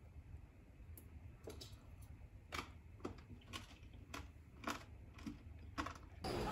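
A series of faint, sharp clicks, about two a second, over a low hum. Just before the end a louder steady hiss cuts in.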